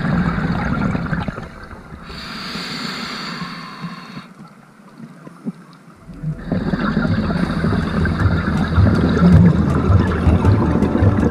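Scuba diver's regulator breathing heard underwater: a hissing inhale about two seconds in, a short pause, then an exhale of bubbles gurgling and rumbling from about six seconds on.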